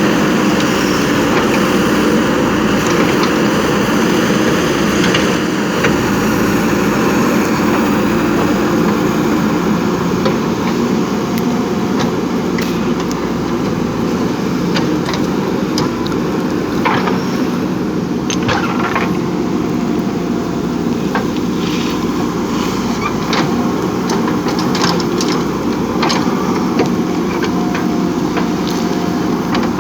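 JCB 3DX backhoe loader's diesel engine running steadily while working, with scattered short knocks and clanks from about twelve seconds in.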